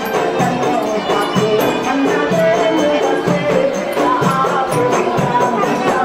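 Music: a melody over a steady percussion beat.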